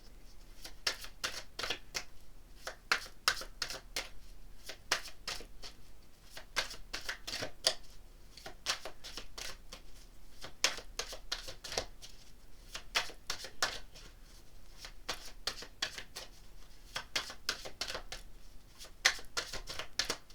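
A deck of tarot cards being shuffled by hand: a long run of quick, crisp card clicks and snaps coming in clusters with short pauses between them.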